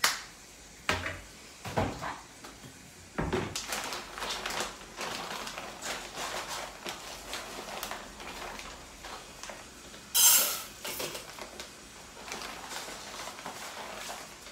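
Kitchen handling sounds. A few knocks of items being set down on the counter come first. Then a plastic bag of Japanese rice keeps rustling and crinkling as it is handled over an open electric rice cooker, with a short louder burst about ten seconds in.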